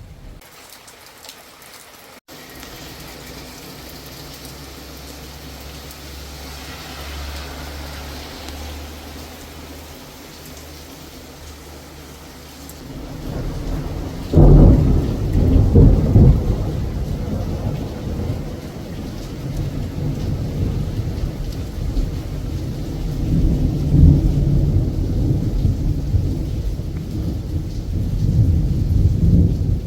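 Thunderstorm: steady rain with thunder. About halfway through, a low rumble builds into a loud clap, followed by long rolling thunder that swells again near the end.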